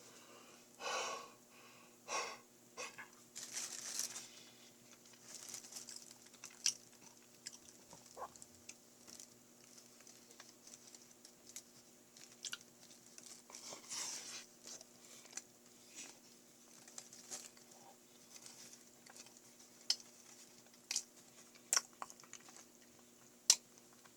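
Faint, close chewing and sticky mouth clicks of a person eating a dense, soft lump made from mashed Choco Pies. There are a few louder bursts in the first four seconds and again about fourteen seconds in.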